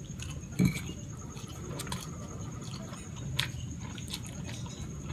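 Close-miked wet chewing and slurping of creamy fettuccine carbonara noodles, with a short louder smack about half a second in and a few small clicks later.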